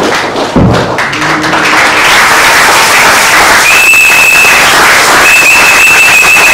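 Congregation applauding with steady hand-clapping. From about halfway in, a whistle is blown in two long, steady, high blasts over the clapping.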